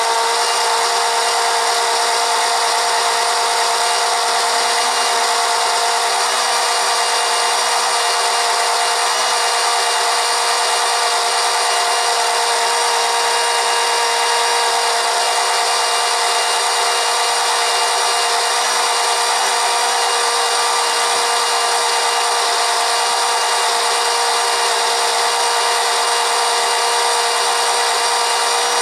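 Small electric oil transfer pump running steadily with a constant motor whine, sucking hot engine oil out through its suction hose.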